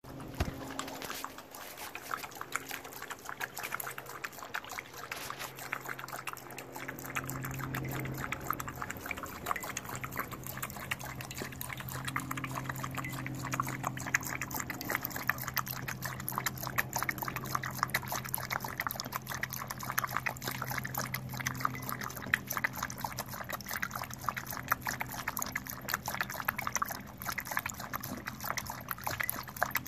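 Dog lapping water from a stainless steel bowl: continuous rapid splashy laps of the tongue, with water slopping against the metal.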